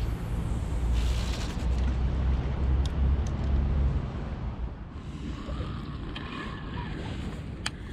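A low engine rumble that swells about a second in and fades after about four seconds, with a single sharp click near the end.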